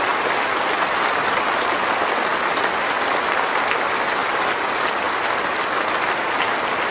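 A large congregation applauding steadily: a dense, even clatter of many hands with no break.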